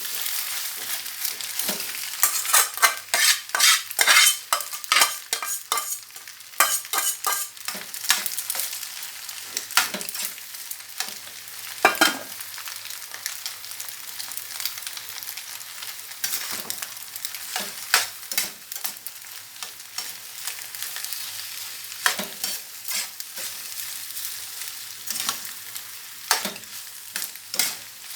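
Macaroni and vegetables sizzling in hot oil in a frying pan while being stirred, with a steady hiss and the stirring utensil scraping and knocking against the pan. The strokes come thick and fast for the first several seconds, then every second or two.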